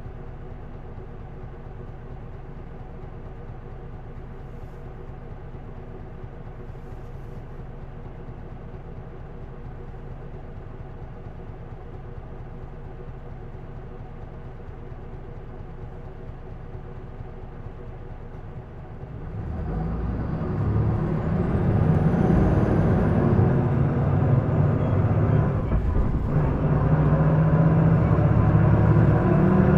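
Isuzu Erga PDG-LV234L2 city bus's six-cylinder turbo diesel idling steadily, then revving hard as the bus pulls away about two-thirds of the way in, with the engine note climbing. A high whine rises and falls as it accelerates; this bus is known for an odd noise it did not make when new.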